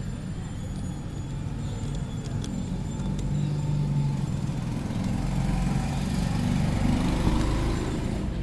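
A motor running with a steady low drone that grows a little louder midway, with a few faint light clicks.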